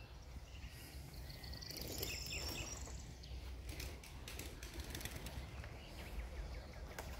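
Faint outdoor ambience: a steady low rumble, like wind on the microphone, with a few short, high bird-like chirps and scattered faint clicks.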